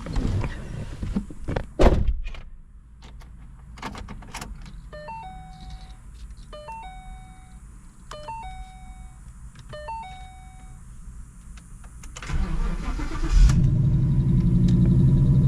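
Ford Mustang GT's 5.0 L V8 being started: a few clicks, then the car's warning chime sounds four times, and near the end the engine cranks, catches and settles into a loud, steady idle.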